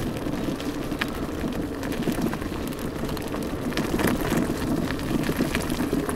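Electric scooter riding over a rough gravel track: tyres crunching on loose stones, with scattered clicks and rattles from the bumps. A faint wavering hum from the 800 W motor runs underneath.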